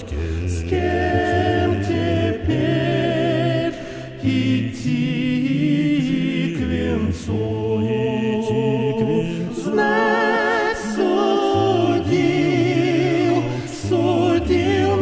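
Choir singing a slow Russian folk song in harmony, the voices holding long notes with vibrato over a sustained low bass part.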